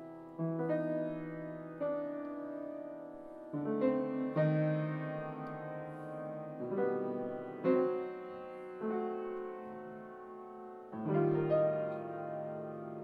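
Free-jazz piano music: slow chords struck every second or two and left to ring out.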